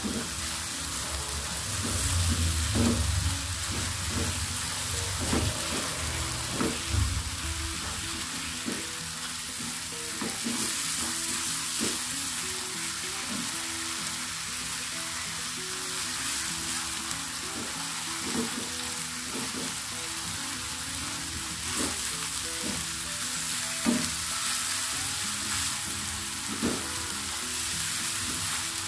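Ground spice paste sizzling in hot oil in a nonstick frying pan, stirred with a silicone spatula: a steady sizzle with repeated scrapes and soft taps of the spatula on the pan. There are a few dull bumps in the first several seconds.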